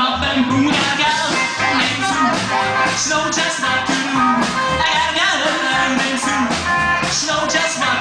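Rock and roll band playing at full volume, with guitar and singing.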